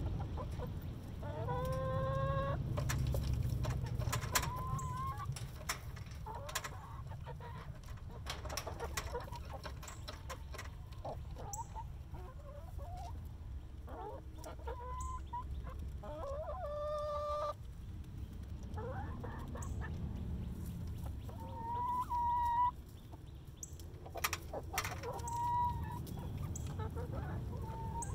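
Hens clucking, with a few drawn-out calls now and then, while they peck at feed in a hanging plastic feeder; many sharp taps of beaks come through between the calls.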